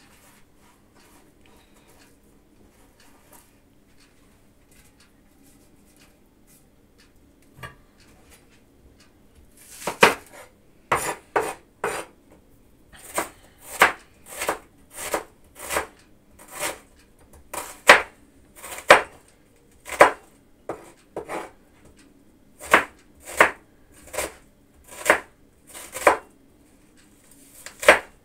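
Kitchen knife slicing an onion into rings on a wooden cutting board. The first ten seconds or so hold only faint small clicks, then sharp knife strikes on the board come in a steady run, a little more than one a second.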